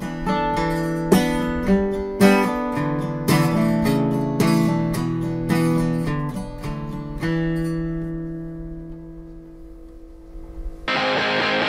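Acoustic guitar picked note by note to the end of a song, closing on a chord that rings out and fades. Near the end, louder music with distorted electric guitar cuts in abruptly.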